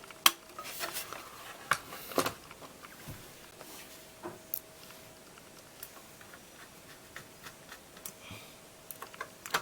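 Light clicks and taps of a graphics card's cooler, fan connector and screws being handled as the cooler is fitted back on, sharper and more frequent in the first couple of seconds, then sparse. A faint steady hum runs underneath.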